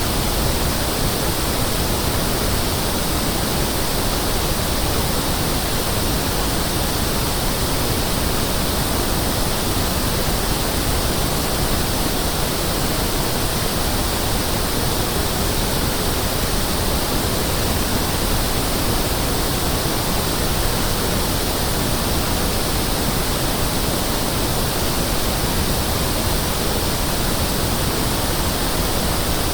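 Pink noise test signal: a steady, even hiss spread across the whole frequency range, unchanging in level. It is the 1/f test signal used to check the response of loudspeakers, sound systems and rooms.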